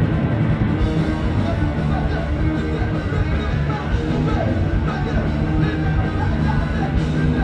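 Punk rock band playing live, with electric guitars and drums going without a break.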